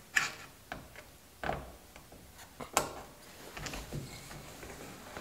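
Headliner cloth being pushed up and fitted against the inside of a car roof: scattered clicks and knocks with brief rustling, the sharpest click about three seconds in.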